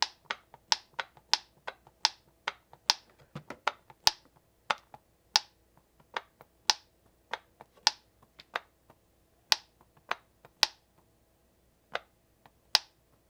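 Small hand-held plastic toy clicking as it is worked in the hand: short, sharp clicks at an irregular pace of about two a second, with no steady sound between them.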